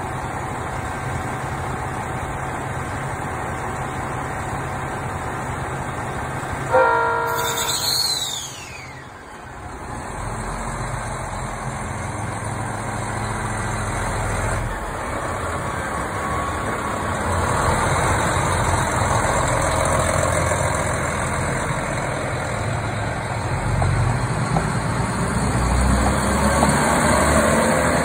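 KiHa 261 series diesel multiple unit idling, then sounding one short horn blast about seven seconds in. Its diesel engines then rev up and the wheels rumble over the rails as the train pulls away, growing steadily louder as the cars pass.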